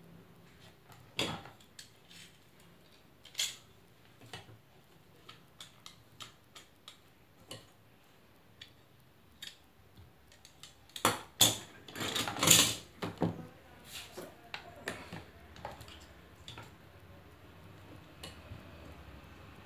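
Scattered clicks and knocks of small tools, wire and plastic parts handled on a workbench, with a louder burst of clattering and scraping about eleven to thirteen seconds in.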